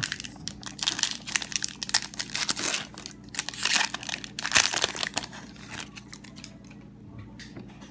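Foil wrapper of a Magic: The Gathering Kaladesh booster pack being torn open and crinkled, a run of irregular crackling rustles that dies down after about five seconds.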